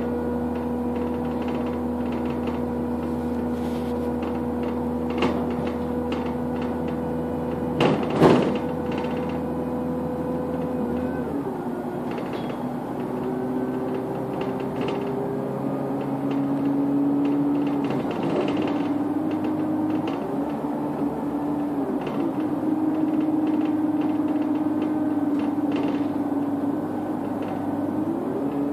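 Bus engine and drivetrain running at road speed, heard from inside the passenger cabin: a steady whining hum that drops in pitch a little before halfway and shifts up and down several times after. A sharp knock sounds about eight seconds in.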